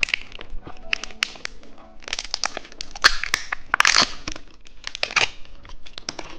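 Plastic candy wrapper crinkling and tearing as it is handled and opened: an irregular run of sharp crackles, with the loudest bursts around the middle.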